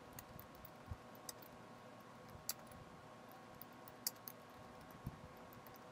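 Faint typing on a computer keyboard: scattered, irregular key clicks as a sentence is typed, a few of them sharper than the rest.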